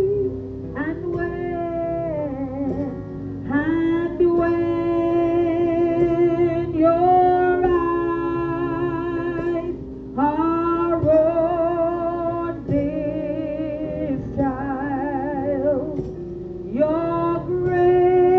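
A woman singing a worship song into a microphone, in phrases a few seconds long with a wavering vibrato, over steady instrumental accompaniment.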